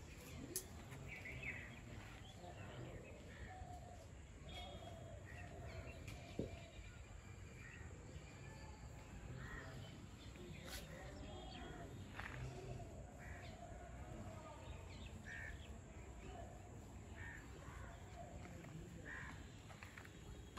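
Faint outdoor background with birds calling here and there, including crow-like cawing, over a steady low hum. A few light ticks are scattered through it.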